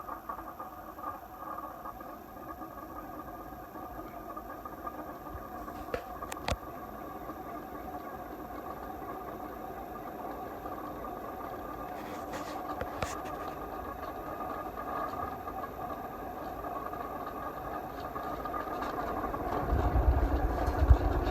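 SMC Laguna 52-inch ceiling fan running on high, very noisy: a steady motor hum with the rough noise of completely shot bearings. A few clicks sound partway through, and a low rumble builds near the end.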